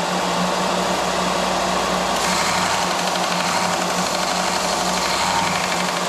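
Electric bench sander running steadily with a constant motor hum while a small metal piece is held against the abrasive and sanded down to fit, giving an even grinding hiss.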